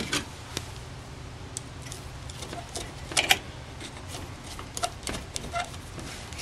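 Scattered light metallic clicks and taps of a screwdriver and small parts being handled on a Rochester Monojet carburetor body on a metal workbench, with one louder clack about three seconds in, over a low steady hum.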